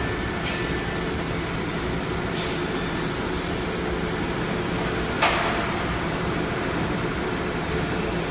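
Steady low machinery hum from a powered-up CNC router, with a couple of faint clicks and one sharp knock about five seconds in.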